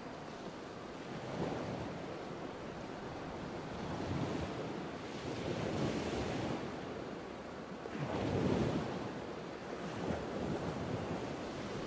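Ocean surf: a steady wash of water noise that swells and ebbs every two to three seconds as waves break.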